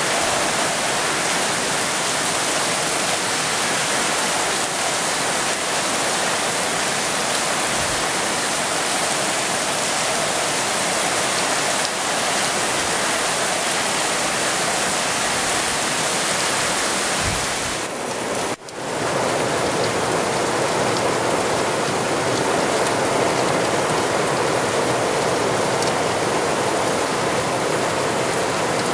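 Heavy storm rain pouring down, a loud steady hiss of downpour. It drops out for a moment about two-thirds of the way through.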